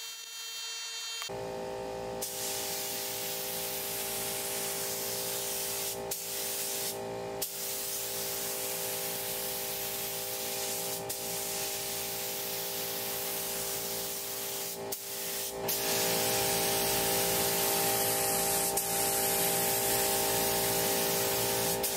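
Gravity-feed air spray gun hissing as it sprays a coat of thinned enamel paint, with a steady hum underneath. The hiss gets louder about two-thirds of the way through.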